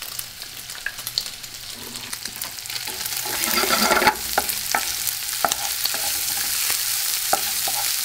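Chopped bacon, garlic and shallot sizzling in a nonstick skillet while a wooden spoon stirs them, with scattered light clicks and scrapes of the spoon against the pan. The sizzle swells about three seconds in and stays louder.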